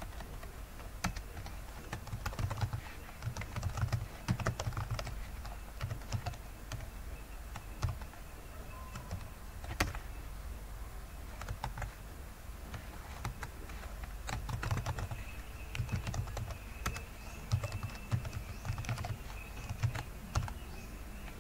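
Typing on a computer keyboard: irregular bursts of keystrokes with short pauses between them, over a steady low hum.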